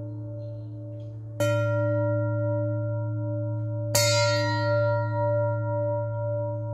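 A metal bell struck twice, about a second and a half in and again about four seconds in, each stroke ringing on in a long, steady, humming tone; the second stroke is the brighter and louder.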